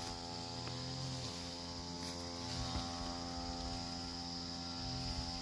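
Brush cutter engine running steadily at a distance: a constant drone, with a steady high-pitched hum above it.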